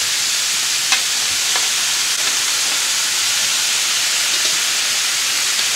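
Thin-sliced raw beef sizzling steadily on a hot griddle, with a couple of light clicks about a second in.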